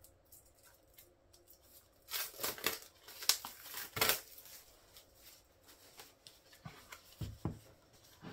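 A cardboard album and its paper photobook being handled: rustling, sliding and scraping as it is turned over and opened. The handling is loudest in a cluster of scrapes and crinkles about two to four seconds in, with lighter paper rustles after.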